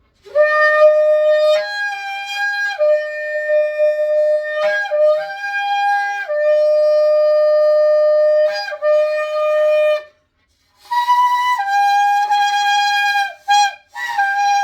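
Shofar blown in long blasts that jump back and forth between a lower and a higher note. After a break about ten seconds in, a further blast starts high and drops, followed by short blasts near the end.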